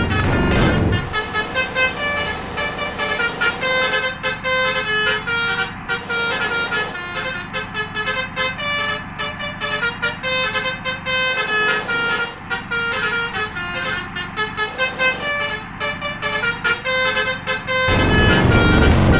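Multi-tone telolet basuri bus air horn playing a quick melody of stepping pitches. A louder low rumble comes in near the end.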